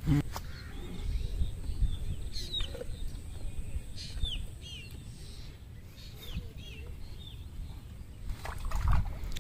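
Small birds chirping: short, high, curved chirps scattered through, over a low rumble. Near the end, water poured from a mug splashes into the net.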